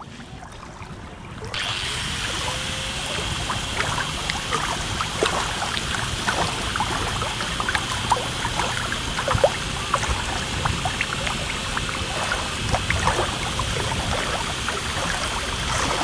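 Steady rushing noise of a boat under way on water, with many small splashes and crackles; it comes in suddenly about a second and a half in.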